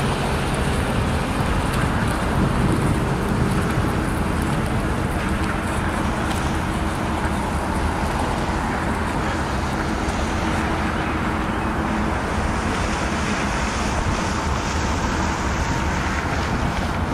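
Pickup truck driving along a road: steady tyre, engine and wind noise.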